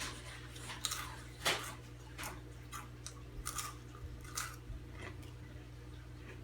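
Takis rolled corn tortilla chips being crunched and chewed: a series of short, crisp crunches spaced about half a second to a second apart, the loudest about one and a half seconds in.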